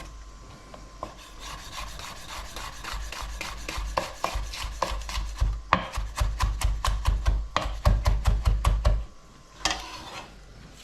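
Kitchen knife chopping on a wooden cutting board: a quick, even run of strikes that stops about nine seconds in.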